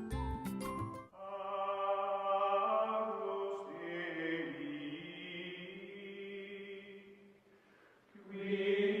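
Closing music: a second of busy music with percussive strikes, then long, slowly gliding notes from chant-like voices that fade away about seven seconds in, before a new held chord starts near the end.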